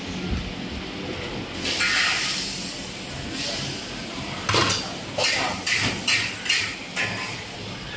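Wok cooking over a gas burner: a sizzling hiss from about a second and a half in, then about five sharp metal clanks of a ladle striking the wok.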